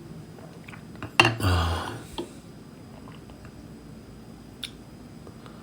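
Light clinks of crockery and cutlery, a few sharp separate ticks, with a brief low voice sound about a second in.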